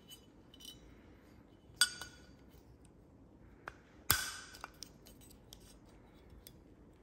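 Throwout bearing's clips snapping onto the steel clutch fork of a Porsche Boxster 986: light ticks of handling, then two sharp snaps about two seconds apart, the second the louder, as the bearing clips into place on the fork.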